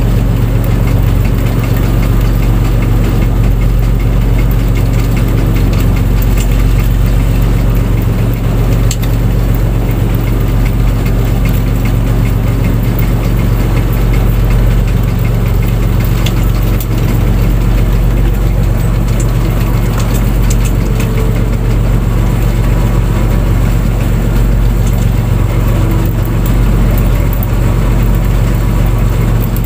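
Fishing boat's engine running loud and steady, its pitch unchanging.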